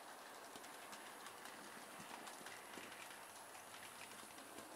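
Model railway train running along the track: faint, rapid, irregular clicking of the locomotive's and coaches' wheels over the rail joints.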